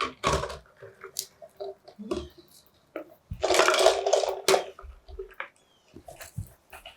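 Parrots pecking and working at a plastic parmesan bottle: scattered taps and clicks, with a louder noisy rustle about a second long near the middle.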